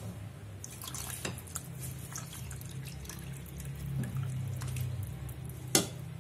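Milk pouring and splashing into a glass bowl of moistened semolina, with small clicks of a spatula against the glass and one sharp knock near the end. A steady low hum runs underneath.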